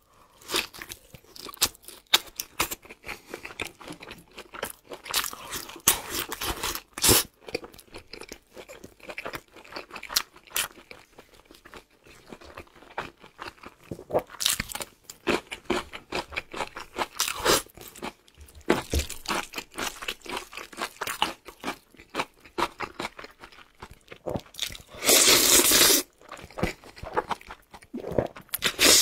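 Close-miked eating: crisp crunches and chewing through bites of fried breaded cutlet and cucumber, then a loud slurp of black bean noodles near the end.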